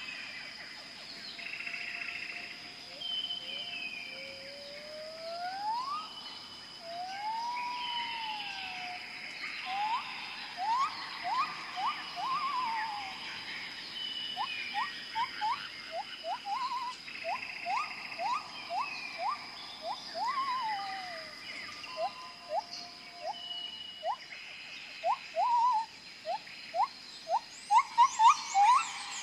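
Tropical jungle ambience: birds whistling and calling over a steady high-pitched insect drone. There is a long rising whistle and a rise-and-fall whistle early on, then runs of quick upward-sweeping notes, loudest near the end.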